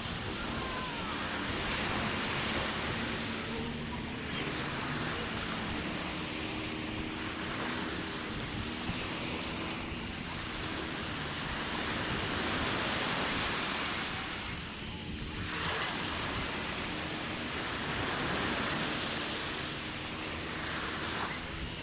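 Sea surf: waves breaking and washing onto the shore in a continuous rush that swells and eases every few seconds, with a few brief lulls between waves.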